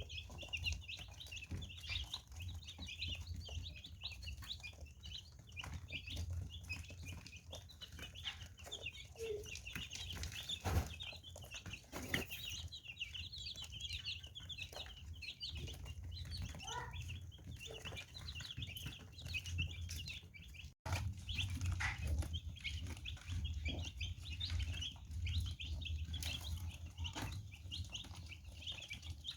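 A group of baby chicks peeping continuously, many short high chirps overlapping, over a steady low hum, with a brief break about two-thirds of the way through.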